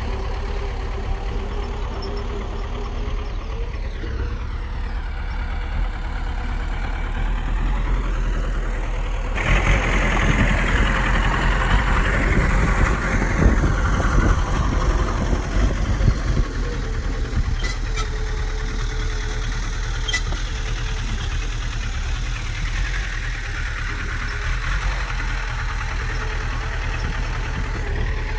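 Heavy diesel engine of a bulldozer running steadily, turning louder and rougher for about six seconds a third of the way in, with two sharp clicks later on.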